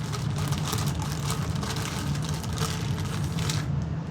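Irregular rustling and light clicks as a replacement plastic vacuum hose is handled, over a steady low hum.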